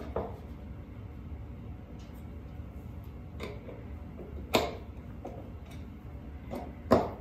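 A few sharp clicks and knocks of a hand screwdriver working on a screw in the wooden miter fence of a shooting board, the loudest about four and a half and seven seconds in.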